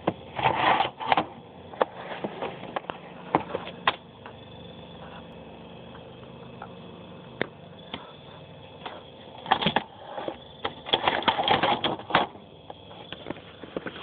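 Handling noise of a phone held to the microphone: irregular sharp clicks and scratchy rustles over a low hiss, coming in a cluster near the start and another, longer one about ten seconds in.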